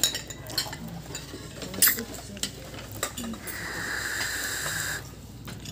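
Spoons and forks clinking against plates and bowls during a meal, in scattered light clicks. About two-thirds of the way through, a steady hiss lasts about a second and a half.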